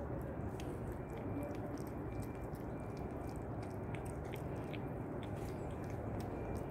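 Kitten chewing its food: small, irregular clicks over a steady low background noise.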